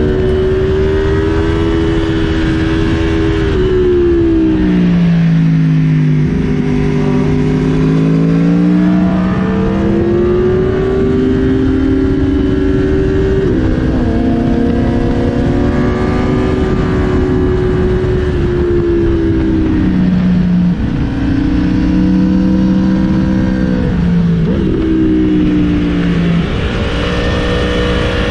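Aprilia Tuono sport motorcycle engine pulling through the gears, its pitch climbing and then stepping down at each shift several times, over a steady wind rush on the helmet microphone.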